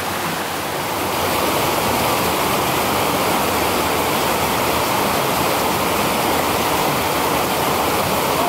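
Fast, shallow creek rushing over rocks, a steady noise of white water that grows louder about a second in and then holds.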